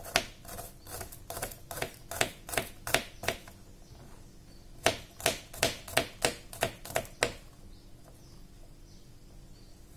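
Kitchen knife slicing garlic cloves on a plastic cutting board: sharp taps of the blade hitting the board, about three a second, in two runs with a short pause between.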